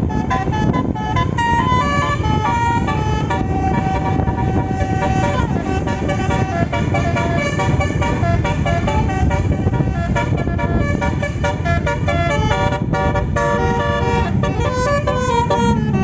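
Bus 'telolet' basuri multi-tone horn playing a tune of held notes that step up and down in pitch, over a steady low rumble.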